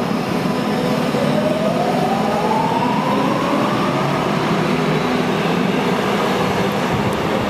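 Underground metro train pulling out of the station and accelerating past, with a traction-motor whine that rises in pitch for the first few seconds and then levels off over a steady rumble of wheels on rail.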